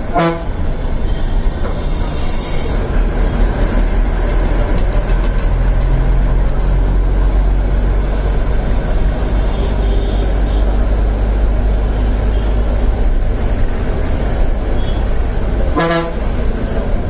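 Inside a moving city bus: the diesel engine's steady low drone and road rumble, with a short vehicle horn toot right at the start and another about sixteen seconds in.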